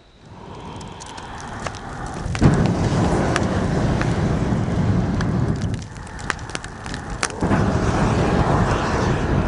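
Wood fire inside an upright log, rushing loudly as air is blown into it through a long tube, in two long surges with a short dip between, and sharp crackles and pops throughout.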